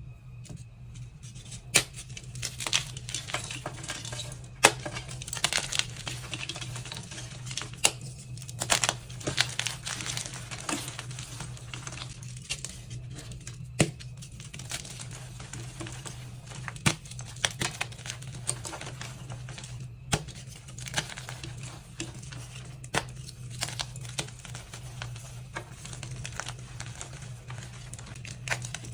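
Chunks and blocks of dyed gym chalk being crushed and crumbled: a dense crunching crackle with sharp snaps every second or two as pieces break.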